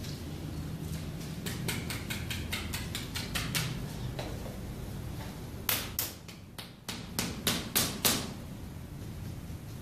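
Sharp taps struck on the heel during a heel-spur massage: a quick run of light taps, about five a second, then about eight louder strikes near the middle, over a steady low hum.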